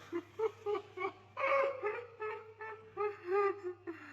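A person's high-pitched voice in short, wordless exclamations, with one longer note held about one and a half seconds in that falls slightly.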